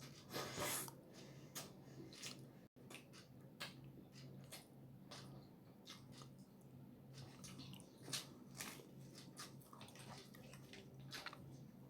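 Close-miked eating sounds: wet mouth smacks and chewing of roti and tadka, many short irregular clicks over a faint steady hum.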